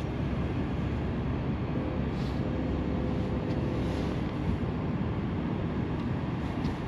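Steady low rumble and hiss of a boat sitting on fast-moving river water, with a faint hum from about two to four seconds in.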